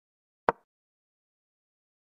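One short, sharp click about half a second in: the move sound effect of an animated chess board as a pawn is played.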